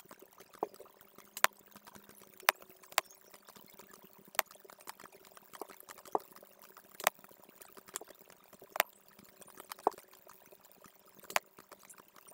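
Computer mouse clicking, single sharp clicks at irregular intervals of about a second, some softer than others, while picking tools and placing points in CAD software.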